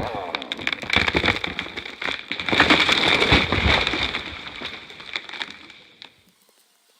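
A felled tree coming down: a long run of cracking and snapping as the trunk and branches break and crash through, loudest about a third of the way in, then dying away to quiet.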